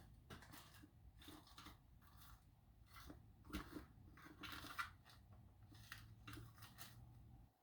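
Faint scattered clicks and rustles of small lock pins and parts being handled while rummaging through a locksmith's pinning kit; the sound cuts off suddenly near the end.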